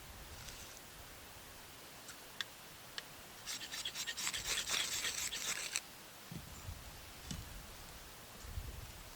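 Scratchy scraping and rustling for about two seconds, a few seconds in, with a few sharp clicks before it and soft knocks after: hands working fire-lighting materials at a small wood-burning camp stove.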